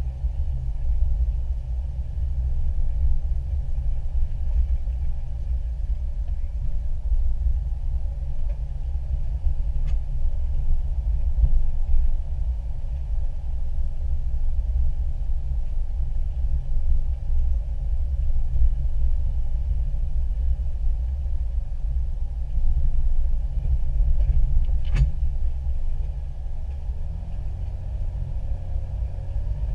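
Off-road 4x4 driving slowly along a dirt trail, heard from inside the cab: a steady low engine and road rumble, with one sharp click late on.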